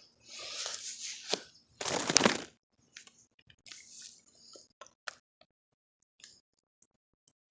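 Rustling and crunching handling noises, the loudest about two seconds in, followed by a scatter of faint small clicks and ticks.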